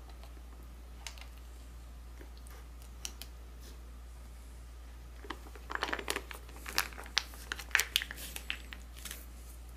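Foil MRE entree pouch crinkling as it is squeezed and emptied of chicken and dumplings onto a plastic tray: a few light clicks at first, then dense crinkling through the second half. A steady low hum runs underneath.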